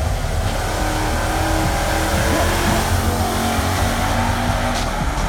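Drag-racing cars accelerating hard down the strip at full throttle, loud and sustained.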